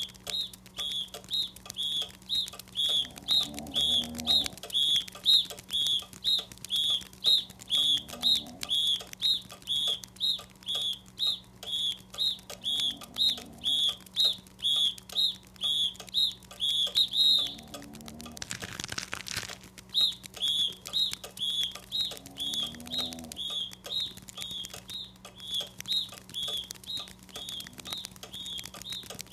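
A high, thin chirp repeating steadily about two or three times a second, which stops for a couple of seconds about two-thirds through while a short whooshing hiss passes, then resumes.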